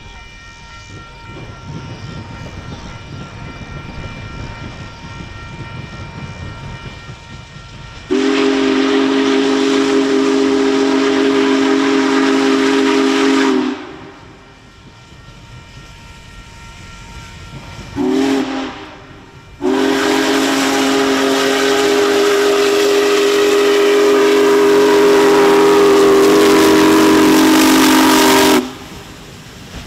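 Union Pacific Big Boy 4014's steam whistle sounding a chord of several tones in three blasts: a long one about eight seconds in, a short one near the middle, and a longer one that cuts off near the end. Before the first blast the approaching steam locomotive's rumble and hiss are heard, softer.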